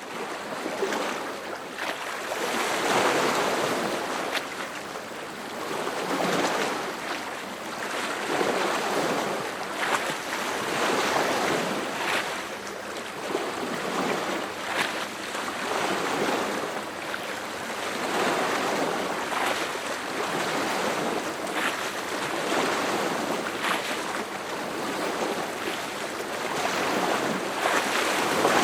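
Small lake waves lapping and splashing against the shore, a continuous wash of water that swells and recedes every couple of seconds, with now and then a sharper splash.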